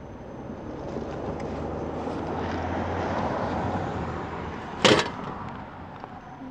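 A vehicle passing, its engine and road noise swelling and then fading over a few seconds, with a single sharp knock about five seconds in.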